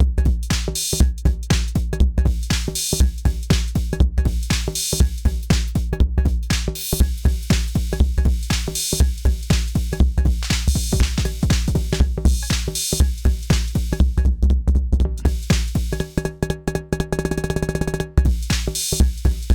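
Arturia DrumBrute Impact analog drum machine playing a beat: a kick on a steady pulse under hi-hats and snare. About sixteen seconds in the kick drops out for a couple of seconds of rapid repeated pitched hits, like a roll, then the full beat comes back.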